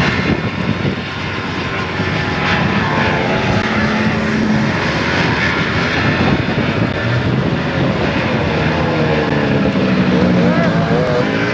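Snowmobile engines running hard, their pitch rising and falling as the throttle changes, with the wavering most marked in the last few seconds.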